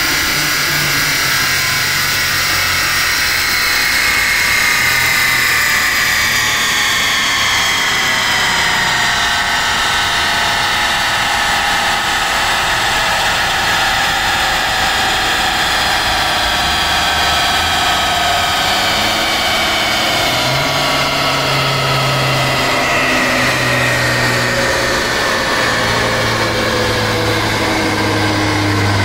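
Mercedes-AMG A45's 2.0-litre turbocharged four-cylinder and drivetrain running on a chassis dyno, with a mechanical whine that falls slowly in pitch. A steady low engine note comes up about two-thirds of the way through.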